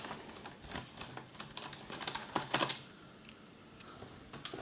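Irregular light clicks and taps of small screws and a screwdriver being handled against a laptop's plastic case. They thin out about three seconds in.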